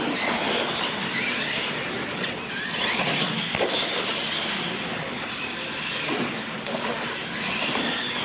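Electric R/C monster trucks racing, their motor and gear whine rising and falling as they accelerate over launch ramps, with a short knock about three and a half seconds in.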